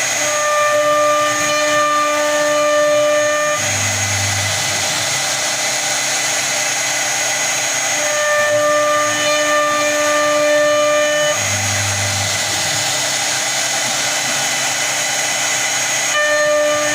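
CNC router spindle running steadily while it carves a door design, with a constant high whine. A cluster of pitched tones sounds for about three seconds, drops out, and returns roughly eight seconds later and again near the end.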